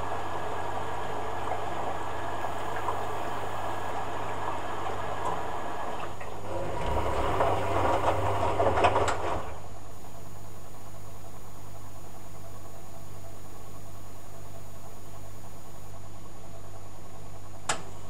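Hoover A8506 washer-dryer in a cotton rinse: water sloshing in the drum over a steady machine hum, swelling to a louder churning gurgle about seven to nine seconds in, then only the hum. A single sharp click near the end.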